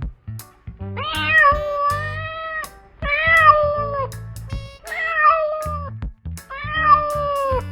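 A domestic cat meowing four times in long, drawn-out calls, over background music with a steady drum beat.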